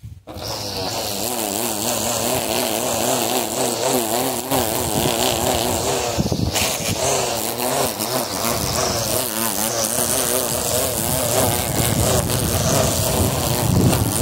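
Small motor of a handheld grass trimmer, switched on and buzzing steadily, its pitch wavering up and down as it cuts around the plants.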